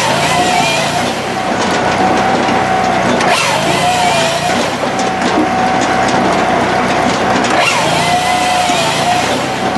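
Firewood processor's engine and hydraulics running under load with a steady whine, as its hydraulic piston-motor saw cuts logs and the log is fed forward. The whine wavers briefly twice, about four seconds apart, as the machine cycles.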